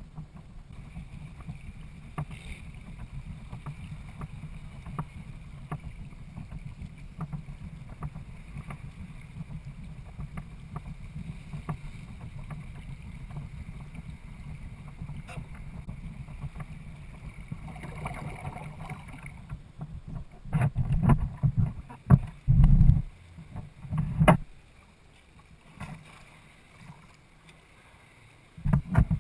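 Hobie Adventure sailing kayak under way, water rushing along its hull as a steady low rush with scattered small clicks. About two-thirds of the way through come several loud, low thumps, and another near the end.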